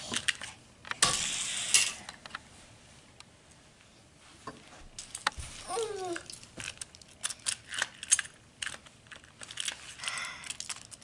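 Light clicks and rattles of die-cast toy cars being handled and fitted into plastic Hot Wheels track launchers, with a brief louder rustle about a second in.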